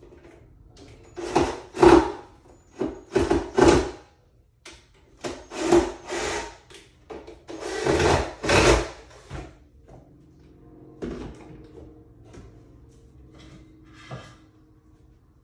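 Cordless drill driving screws into pine shelf boards in short bursts, four pairs over about nine seconds, then only faint handling sounds.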